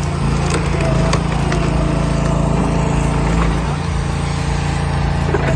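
Engine of an Eastonmade 22-28 firewood splitter running steadily, with a few light clicks.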